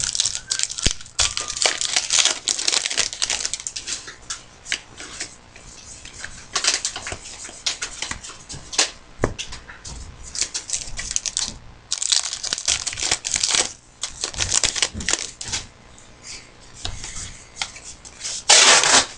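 Trading card packs being torn open and their wrappers crinkled, with cards rustling as they are handled, in irregular bursts.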